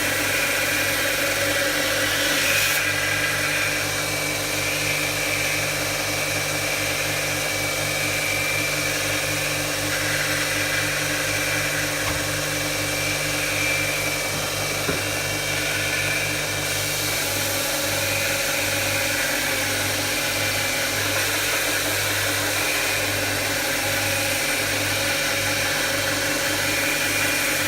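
2x27 belt grinder with an 80-grit belt running steadily, grinding the bevel of a knife blade held in a jig. A steady motor hum under a higher hiss that shifts a couple of times.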